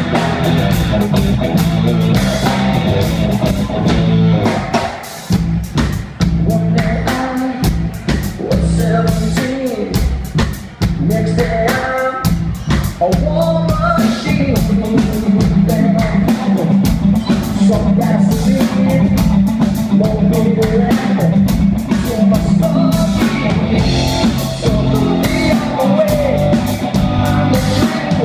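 Live rock band playing a song: electric guitar, bass guitar and drum kit, with a male lead singer.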